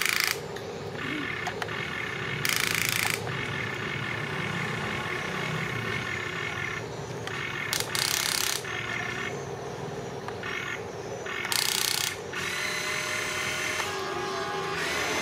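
Electric motors and gearing of a radio-controlled construction model whining steadily, with four short, louder bursts of hiss-like noise, each under a second.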